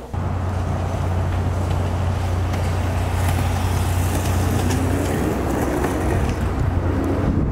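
Skateboard wheels rolling on a concrete sidewalk: a steady rumble with a few faint clicks.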